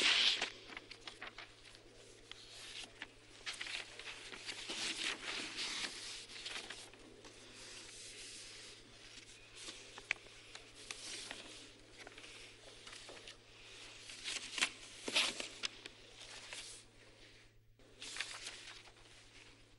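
Sheets of paper rustling and crinkling close to a microphone as they are leafed through, in irregular bursts, loudest right at the start and again about fifteen seconds in.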